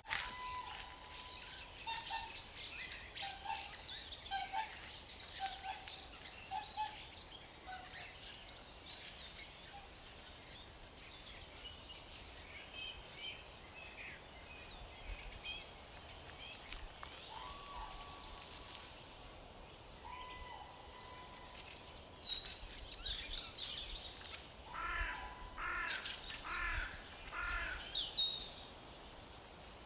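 Several wild birds singing and calling: a dense mix of high chirps, whistled notes and short trills, thinning out in the middle and picking up again in the last several seconds, over a faint outdoor background.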